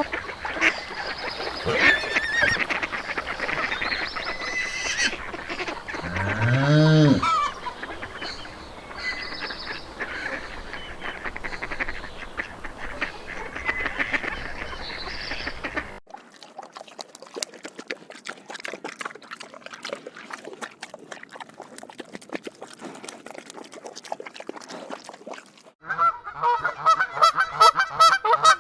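Bird calls from a flock, in three separate sound-effect clips: a busy stretch of calls with one loud call about seven seconds in that rises then falls in pitch; then, after an abrupt cut, a quieter stretch of clicking chatter; and near the end, rapid repeated calls.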